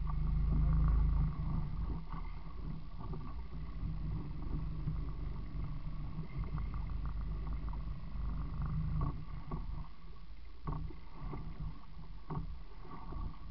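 Small open boat rocking at sea: a steady low rumble with water sloshing against the hull, and a few short knocks in the second half.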